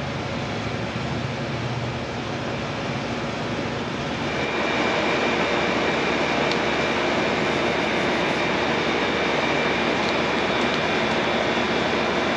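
A machine running steadily with a low hum. About four seconds in it gets louder and a steady high whine joins it.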